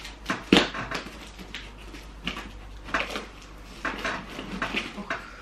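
Packing tape on a cardboard box being picked at and torn open by hand: irregular scratching and tearing noises, with one sharp knock about half a second in.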